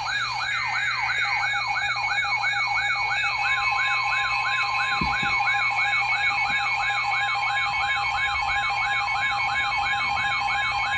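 Weather radio alert alarms sounding for a flash flood warning: a siren-like tone falling over and over, about three times a second, over a higher warbling tone. From about three seconds in, a steady NOAA Weather Radio warning alarm tone joins them.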